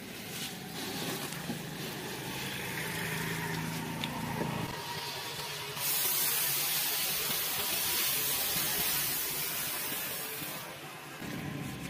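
Puffed rice pouring in a heavy stream into a large metal karahi of jaggery syrup, an even rustling hiss from about six seconds in that stops shortly before the end. Before it, only a quieter background with a low hum.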